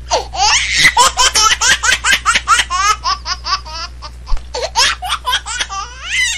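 High-pitched laughter in quick, repeated bursts, rising and falling in pitch, over a steady low hum.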